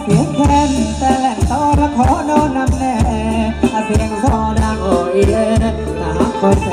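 Live band playing Thai ramwong dance music: a steady drum beat about twice a second under a sung melody.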